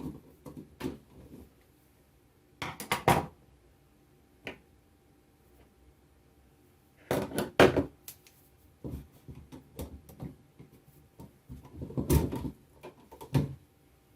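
Screwdriver and an old wall outlet being handled while a wire is taken off its terminal screw: scattered clicks, taps and short scrapes. There are a few louder rattles about three, seven and twelve seconds in.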